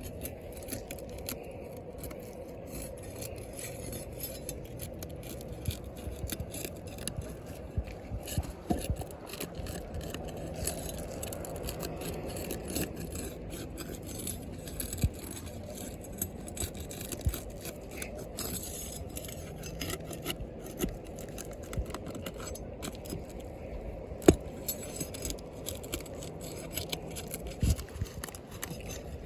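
Objects being handled: scattered scrapes, clinks and knocks over a low steady hum, with one louder knock near the end.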